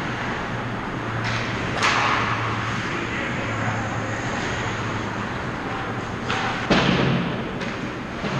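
Ice hockey play around the net over a steady low arena hum, with a sharp crack of stick, puck or skate about two seconds in and a louder thud near the end.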